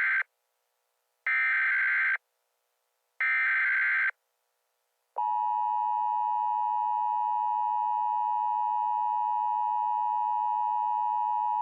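Emergency Alert System header: the tail of one SAME digital data burst and then two more, each about a second long with short gaps, a harsh electronic warble. About a second later the steady two-tone EAS attention signal begins and holds.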